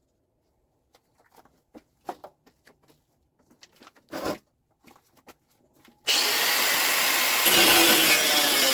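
Faint clicks and knocks of handling, then about six seconds in a power tool starts abruptly and runs loud and steady, a hiss with a hum in it.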